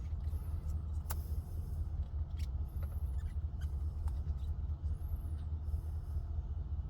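Steady low rumble of a pickup truck idling, heard inside the cab, with a few light clicks and taps.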